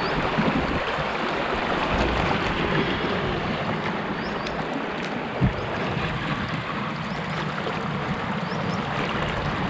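Steady rush of water from falls on the creek ahead, heard from a canoe. A single dull knock comes about halfway through.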